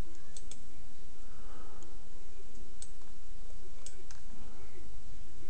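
A few scattered computer mouse clicks over a steady low hum.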